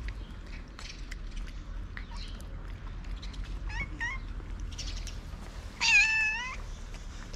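A domestic cat meows once, long and loud, about six seconds in. Two short, quieter chirps come a couple of seconds before it.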